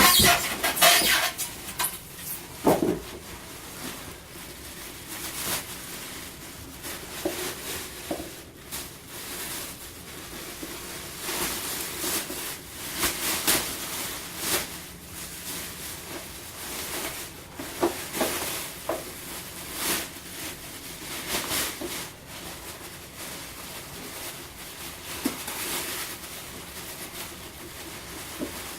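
Packaging being handled and opened: irregular rustling and scraping with frequent short knocks and clicks.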